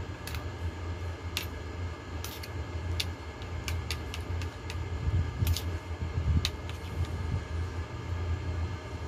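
Air conditioner running with a steady low hum, while a metal spoon clinks sharply against a bowl again and again as hot soup is scooped and eaten.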